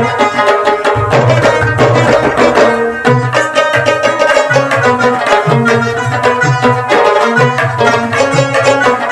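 Background instrumental music with a steady drum rhythm and sustained melodic notes.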